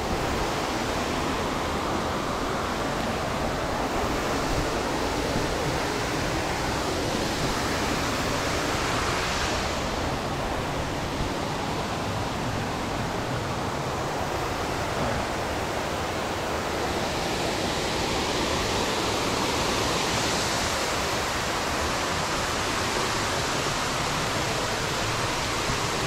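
Steady rush of falling water from a waterfall, an even hiss and roar with no break.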